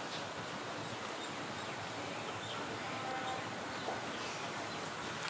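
Steady outdoor background hiss with a few faint, scattered bird chirps.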